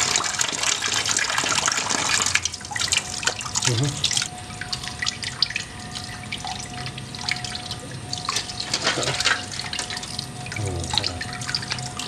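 Water running from an outdoor tap and splashing, louder for the first two seconds or so, with sharp clicks and scrapes of a small knife working on a giant African snail's shell under the stream.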